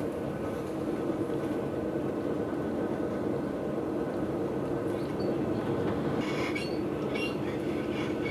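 Interior running noise of a DB Class 643 Talent diesel multiple unit under way: a steady drone from the moving railcar and its wheels on the rails, with a few short light clicks about five to seven seconds in.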